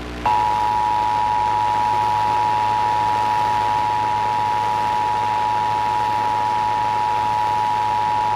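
Emergency Alert System attention signal: two steady tones sounded together as one unwavering alarm, starting a moment in and holding to the end. It announces that an emergency alert follows, here a child-abduction Amber Alert.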